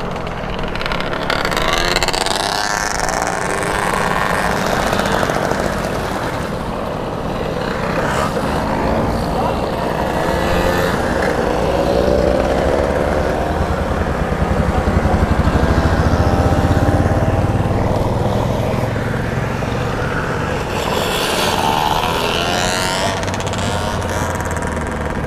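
A procession of small two-stroke mopeds riding past one after another, their engines buzzing in overlapping tones that rise and fall in pitch as each goes by.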